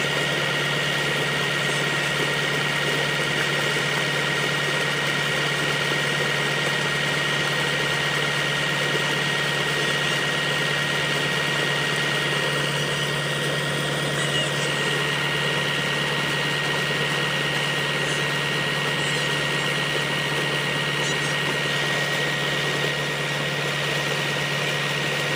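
Tractor engine running steadily to drive a tubewell turbine pump, with water gushing from the discharge pipe into a pool. The engine hum and the rush of water stay constant throughout.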